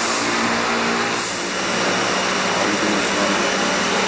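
Steady machinery hum with a constant low drone, and a brief high hiss in the first second.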